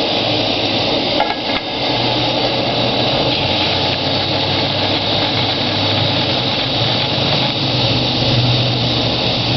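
MSR Whisperlite International liquid-fuel stove burning at full flame under a pot of water coming toward the boil. Its steady roar is joined by a light rattling of the pot lid.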